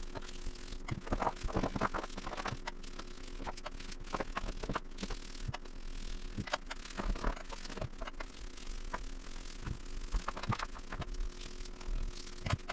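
Irregular scratching, rubbing and light knocks of hand work on a wooden boat's cabin side, over a faint steady hum.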